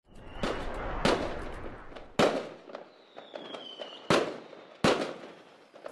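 Fireworks bursting: five sharp bangs, each trailing off in crackle. A thin whistle falls in pitch between the third and fourth bangs.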